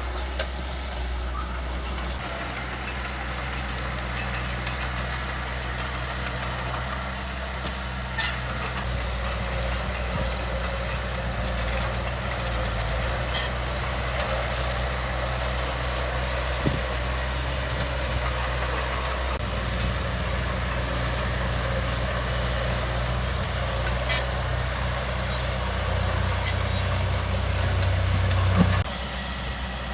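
Heavy diesel engine of earthmoving machinery running steadily, with a few faint clanks. It works harder and louder in the last few seconds, then drops back suddenly about a second before the end.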